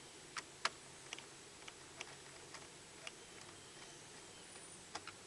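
Scattered light clicks and ticks of small plastic and metal parts being handled while a toy RC truck is taken apart, irregularly spaced, the sharpest about two-thirds of a second in and several more near the end.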